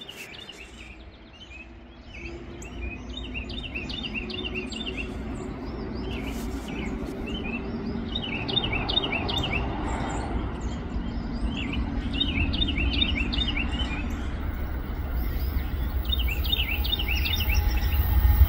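A songbird chirping in repeated short bursts, over the low rumble and hum of an approaching diesel freight locomotive that grows steadily louder.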